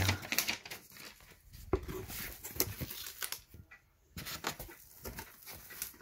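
Cardboard box and polystyrene foam packing being handled: irregular rustles, scrapes and light knocks, with a brief lull a little past the middle.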